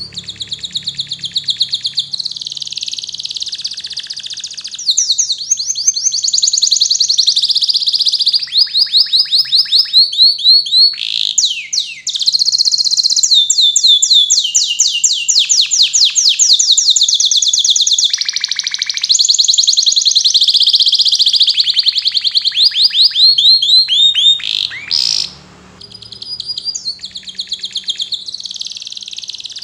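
Domestic canary singing a long, loud, continuous song of fast trills of repeated notes, with one short break near the end. It is in full song, the kind of canary song used as training audio to get young canaries singing.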